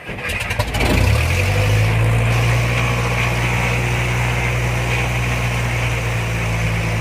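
Cessna 172's piston engine and propeller, heard from inside the cockpit: a few quick pulses as it catches, rising over about the first second, then running steadily at idle.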